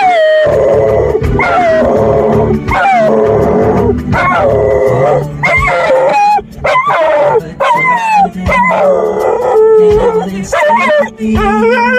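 A dog howling in a string of short cries, each falling in pitch, over background music.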